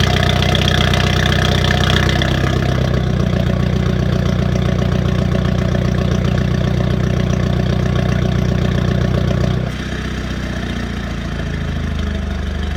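BMW F30 320i's turbocharged four-cylinder engine idling through an aftermarket downpipe and M Performance exhaust after a morning cold start. About ten seconds in, the idle note drops and gets quieter as the fast idle settles.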